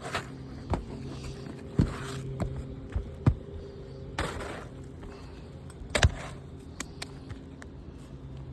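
Two-tab asphalt shingle being worked loose and pulled off a roof: a few sharp knocks and short scrapes, over a steady low hum.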